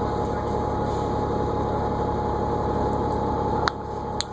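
New Flyer D40LFR diesel transit bus running, heard from inside, with a steady high whine over the engine noise. About three-quarters of the way through there is a sharp click and the sound drops a little quieter, followed by a second click.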